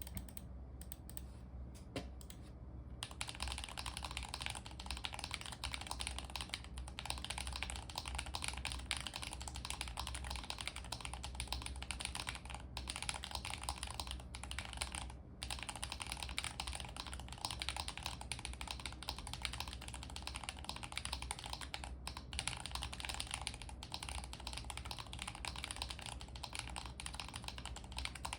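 Fast, continuous typing on a custom Alice-layout mechanical keyboard: lubed T1 Holy Panda tactile frankenswitches (JWK T1 housings, MMD Holy Panda stems) in an aluminium plate, a foamless case and doubleshot ABS Cherry-profile keycaps. A few scattered keystrokes give way to steady rapid typing about three seconds in.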